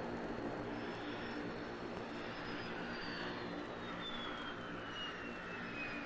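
Tupolev Tu-144's four jet engines running, a steady rush with a thin high whine that falls steadily in pitch.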